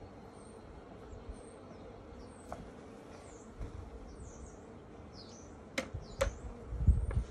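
Small birds chirping and twittering in the background. Near the end come two sharp wooden knocks and a low thump as a wooden hive frame is worked loose and lifted out of a brood box.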